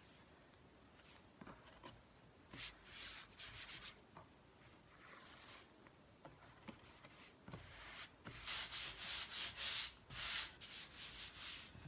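Hands rubbing a sticky stencil transfer against a terry cloth towel to give its adhesive a light coat of fuzz, in scratchy bursts: two short ones about three and five seconds in, then a longer, louder stretch from about eight seconds on.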